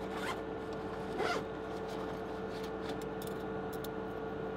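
Backpack pocket zipper pulled open in two quick strokes, about a second apart, followed by a few faint handling ticks, over a steady machine hum.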